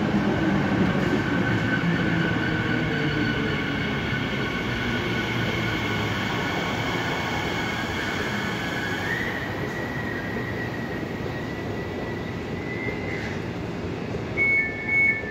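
Elizabeth line Class 345 train braking to a stop at the platform: a rumble that slowly dies away under a steady electric whine, which steps up in pitch about two-thirds of the way through. Near the end the train's door alert starts beeping, about three beeps a second, as the doors are released.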